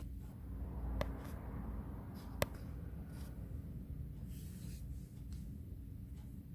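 A quiet room with a steady low hum and two small sharp clicks, about one second and about two and a half seconds in.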